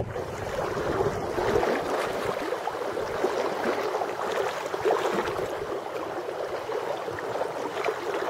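Shallow river current running over riffles: a steady rushing with many small gurgles and splashes.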